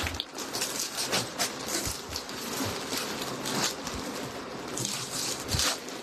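Clothing being handled, rustling and crinkling irregularly, with louder rustles about three and a half and five seconds in.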